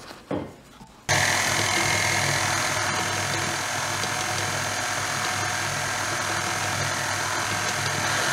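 KitchenAid Artisan stand mixer switched on about a second in, its motor running steadily as the flat beater mixes sifted flour and cocoa into thick chocolate muffin batter.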